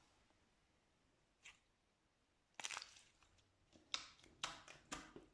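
Slime being pressed and squeezed by hand: a faint click, then a crackle about two and a half seconds in, and near the end a run of sharp crackling pops about twice a second.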